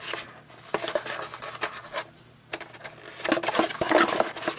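A cardboard flashlight box being handled and opened: rubbing and scraping with light knocks, dying down briefly about halfway, then busier again near the end.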